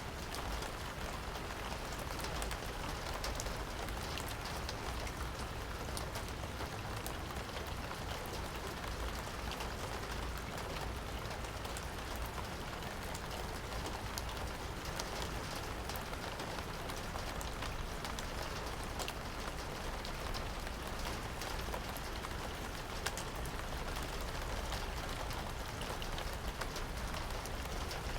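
Steady rain falling, with many individual drops ticking sharply against a surface over an even hiss.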